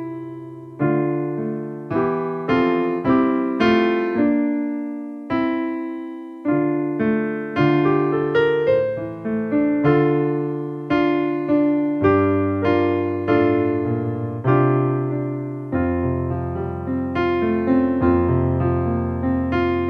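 Solo piano music: chords and a melody, each note struck and fading away, about one or two a second, with deeper bass notes coming in about two-thirds of the way through.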